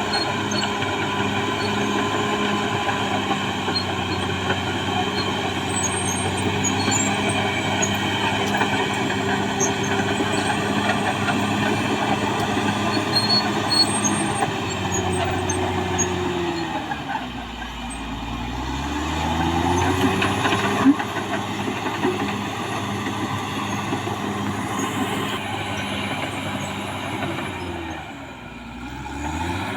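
Caterpillar D6R XL bulldozer's diesel engine running hard, its revs sagging and then climbing back twice, once past the middle and again near the end, with a sharp metallic knock soon after the first dip.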